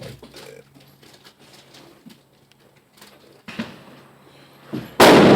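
A few faint handling clicks, then near the end a single loud gunshot that rings on in the enclosed range.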